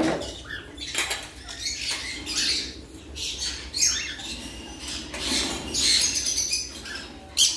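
Caged parrots in an aviary chattering and squawking in irregular, overlapping bursts.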